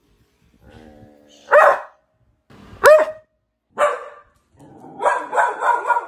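Dog barking: three single barks about a second apart, the sharpest in the middle, then a quick run of several barks near the end.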